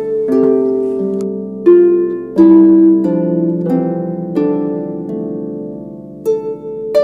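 Solo harp playing a slow melody: plucked notes and chords, each ringing on and fading before the next.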